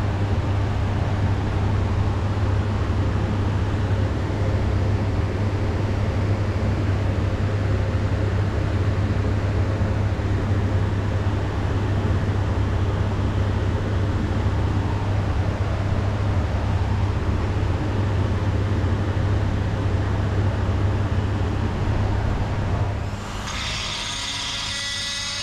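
Steady running of a workshop machine's electric motor: a loud low hum with a rushing noise over it. About 23 seconds in it gives way to the quieter, higher whine of a handheld electric die grinder.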